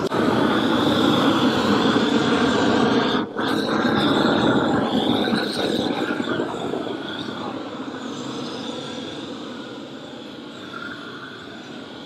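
Propane roofing torch burning steadily as it heats and burns off old mastic and coating from a flat roof so a new membrane can bond. The flame noise breaks briefly about three seconds in and grows gradually quieter over the second half.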